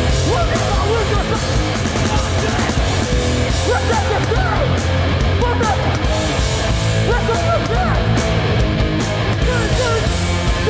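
Hardcore punk band playing live at full volume: distorted electric guitars, bass and drums, loud and steady throughout.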